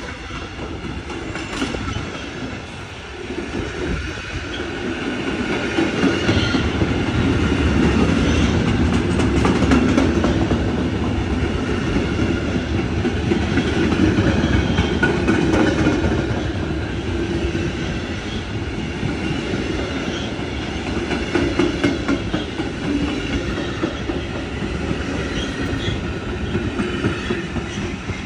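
Freight train of flat wagons rolling past, steel wheels clattering over the rails in a continuous run of clicks. It grows louder a few seconds in and eases off somewhat after about sixteen seconds.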